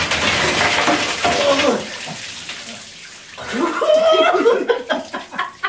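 A pot of ice water dumped over a person's head, splashing down onto a tiled shower floor for about two seconds. Voices and laughter follow about three and a half seconds in.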